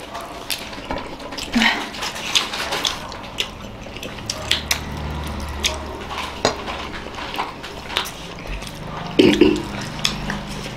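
Eating noises at a table: scattered small clicks and light clinks of plates and sauce bowls, with mouth sounds, as steamed momos are dipped and eaten by hand.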